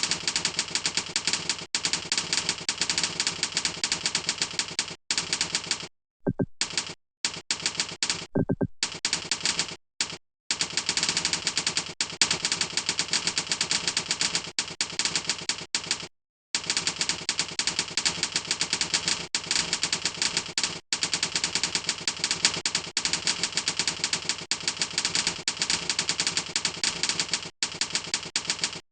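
Rapid, continuous typing on a computer keyboard, a dense run of key clicks broken by a few short pauses partway through.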